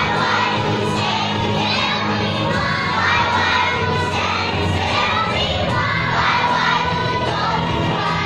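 A group of young children singing together loudly, many voices at once, over steady low backing music.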